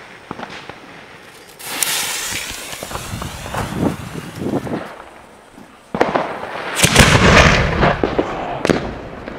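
Fuse hissing for a few seconds, then, about six seconds in, a 4-inch titanium salute shell firing with several loud bangs and sharp cracks.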